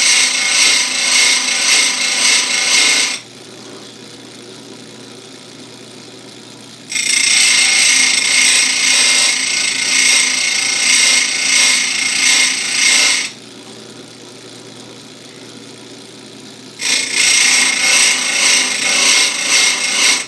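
Electric chainsaw chain grinder: the grinding wheel cutting into the steel teeth of a full chisel chain in three spells of several seconds each, with the motor running more quietly in the gaps between them.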